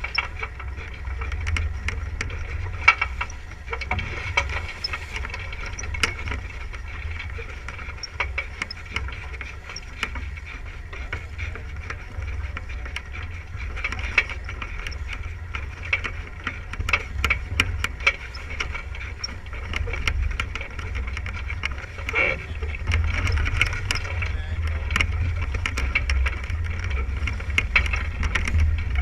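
Water rushing and splashing along the hull of a sailboat heeled under sail, with wind on the microphone and scattered sharp clicks and rattles.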